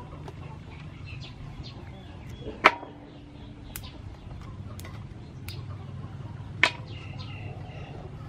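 Yard-long beans snapped into pieces by hand: two sharp snaps about four seconds apart, with fainter cracks between, over a steady low hum.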